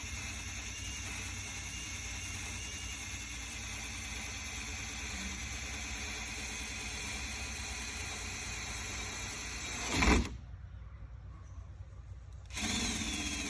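Handheld electric power tool sanding old paint off the underside of a car hood, running steadily. Just after ten seconds it peaks loudly, then drops out for about two seconds before starting again.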